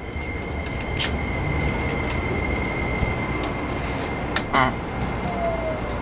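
Interior running sound of a Keikyu New 1000 series train, recorded in a car on the Toyo hybrid SiC VVVF inverter side, slowing as it nears the next station. It is a steady rumble of wheels on rail under a constant high whine, with a few sharp clicks and a brief squeal a little past halfway.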